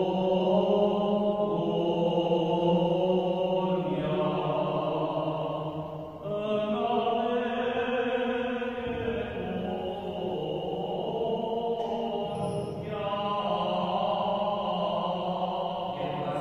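A male voice chants an Armenian Church liturgical hymn in long, held notes, phrase by phrase, with short breaks about six and thirteen seconds in.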